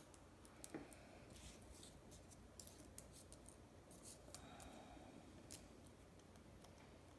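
Near silence with a few faint ticks and rustles of small paper die-cut pieces being handled and laid on a table.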